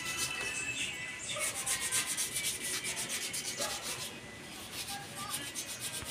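Motorcycle fuel tank being hand-sanded with sandpaper: quick, even back-and-forth rubbing strokes, easing off briefly about four seconds in.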